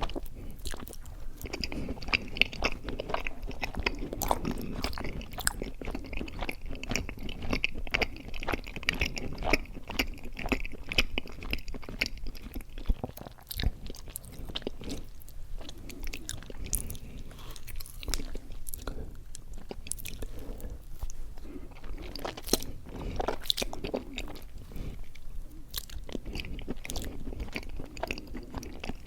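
Close-miked chewing of mochi ice cream: many quick, wet smacks and clicks of the mouth working the soft, sticky rice dough and ice cream.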